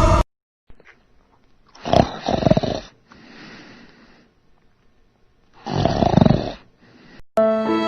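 A person snoring: two loud snores about four seconds apart, each followed by a softer breath out.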